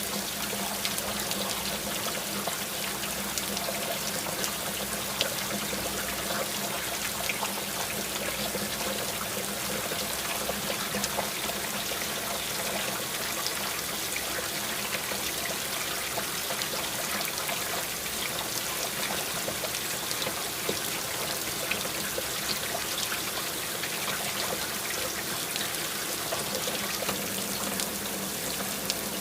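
Water running and trickling steadily, with scattered faint ticks and a faint steady hum underneath.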